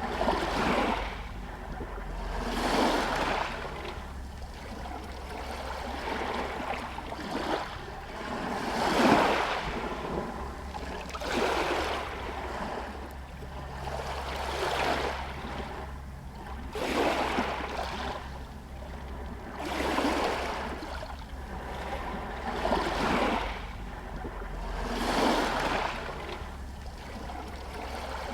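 Small Adriatic sea waves lapping against a pier and stones, each wash swelling and fading about every two to three seconds, over a steady low rumble.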